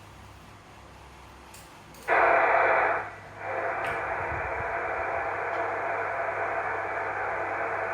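Receiver static and band hiss from a Yaesu FT-450 HF transceiver's speaker: it comes on suddenly about two seconds in, loudest for about a second, dips briefly, then carries on as a steady hiss.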